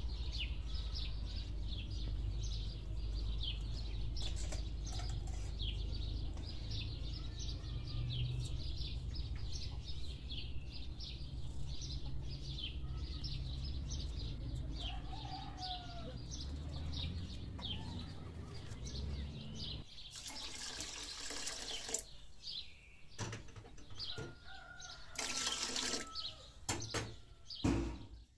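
Small birds chirping over and over above a low steady rumble. Near the end, water pours in two bursts, about two seconds and a second and a half long, into a pot of rice being rinsed.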